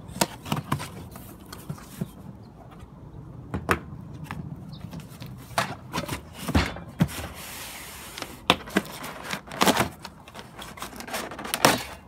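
A cardboard box being slit open with a folding knife and unpacked: irregular knocks, clacks and scrapes of cardboard and the packed parts being handled, with a longer scraping rustle about seven seconds in.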